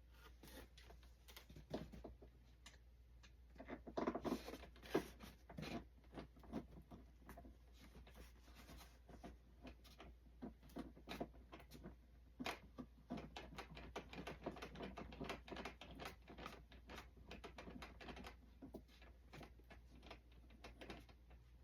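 Quiet, irregular clicking and tapping of small plastic parts and a screwdriver being handled on a foam RC model airframe during assembly, busiest about four seconds in and again in the second half.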